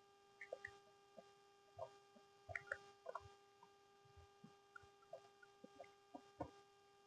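Wet mouth sounds of someone eating chocolate cake: irregular soft smacks and clicks of chewing and lips, a few every second. A faint steady hum runs underneath.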